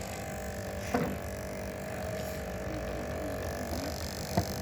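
Small battery-powered DC motor spinning a fan inside a cut plastic bottle, a steady whine at an even level, with two sharp clicks, about a second in and near the end.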